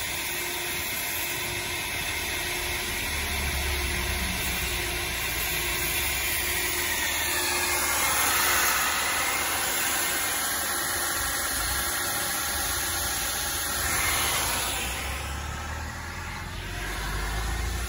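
Concrete grinding equipment running steadily, a continuous hiss and whir over a low rumble, dipping briefly near the end.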